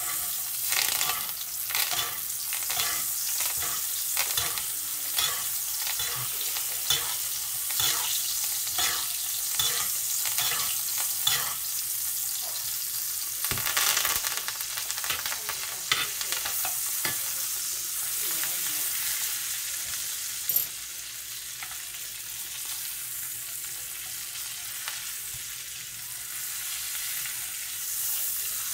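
Butter sizzling around a ribeye steak in a cast iron skillet while a spoon bastes it, scooping and splashing the hot butter over the meat about twice a second. After about twelve seconds the strokes stop, and the sizzle carries on, quieter, with a few sharp clicks of metal on the pan.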